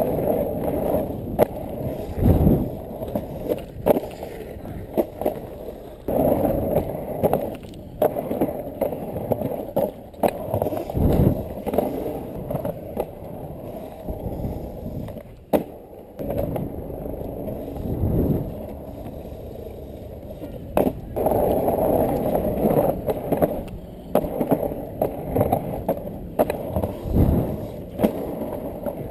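Freebord wheels rolling over asphalt and concrete: a rough rumble that swells and fades with speed and carving. Many sharp clicks and a few heavier thumps come as the wheels cross cracks and seams in the surface.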